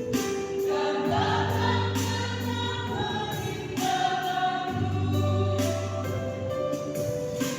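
Church choir singing in parts, holding long sustained notes that change every second or two.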